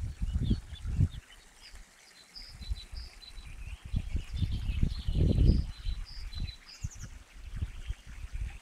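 Songbirds chirping and twittering, many short high notes one after another, over irregular low rumbles on the microphone, the loudest about five seconds in.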